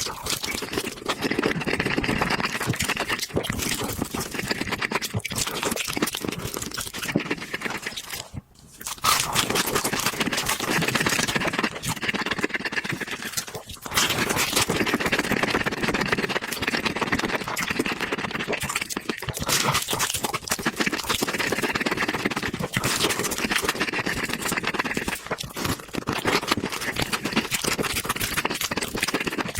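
Close-miked eating: crunching and chewing on chicken, a dense run of small crackles and smacks, with brief pauses about a third and half of the way through.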